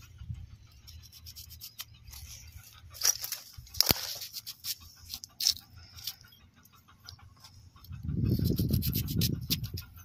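A small knife slicing through an onion held in the hand, a few crisp cuts about three, four and five and a half seconds in, the one near four seconds the sharpest. Near the end a low rumble lasts about two seconds and is the loudest sound.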